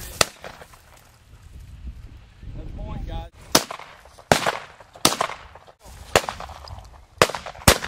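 Shotgun shots at flushing quail: seven sharp reports, each with a short echo. One comes at the very start, then after a pause of about three seconds six more follow roughly a second apart, the last two close together.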